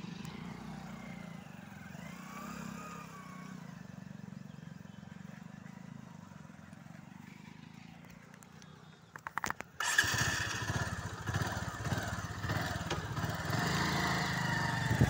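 Motorcycle engine: a quiet hum at first, then a few sharp clicks about nine seconds in, and about ten seconds in the motorcycle starts up and keeps running much louder.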